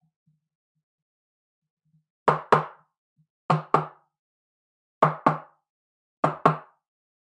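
Sharp knocks in quick pairs, four double knocks at an even, steady pace starting about two seconds in.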